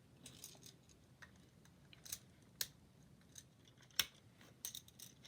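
Plastic magnetic building tiles being handled, with scattered light clicks and taps as they snap together; the sharpest click comes about four seconds in, with a few quick ones near the end.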